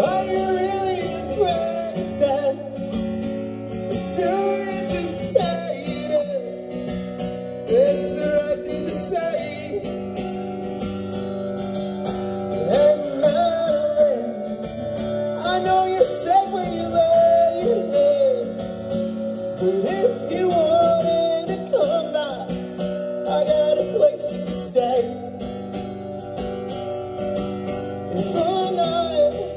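Live band playing a song on strummed acoustic guitars with bass, a sung melody carried over the chords.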